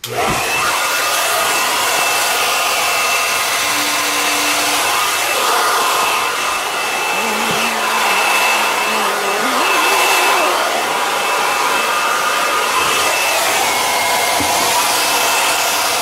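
Hand-held hair dryer switched on and blowing steadily, with a faint high whine over the rush of air, aimed into a freezer to thaw an ice plug blocking its condensation drain.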